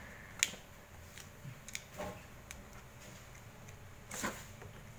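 Scattered light clicks and crackles of vinyl sticker film being pressed and folded onto a sign's curved edge by fingers. There is a sharper click about half a second in and a brief rustle about four seconds in.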